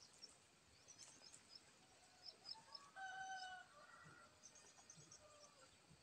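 A rooster crows faintly once, about three seconds in, with small birds chirping high and briefly around it.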